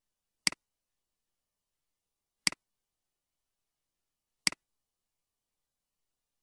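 Three sharp computer mouse clicks, evenly two seconds apart, each a quick press-and-release double tick, against complete silence.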